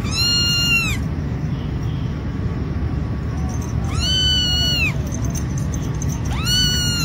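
A young kitten mewing: three high-pitched mews, each under a second long, each rising, holding and dropping off, the first near the start, the second about four seconds in, the third near the end. A steady low background noise runs under them.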